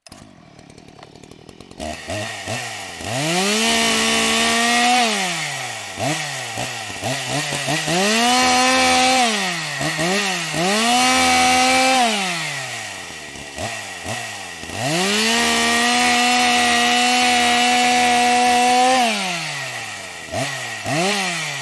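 Gasoline chainsaw engine catching about two seconds in, then revved to full throttle and dropped back to idle four times, the last hold the longest, with short throttle blips at idle in between.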